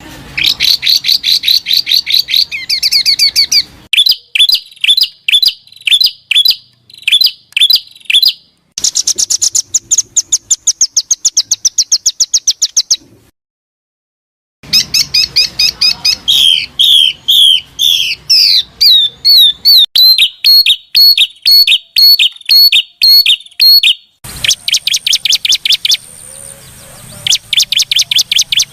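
Songbird calls spliced into a bird-training track: loud, fast series of sharp, high repeated notes and trills, changing abruptly from one phrase to the next, with a brief dead silence about halfway through.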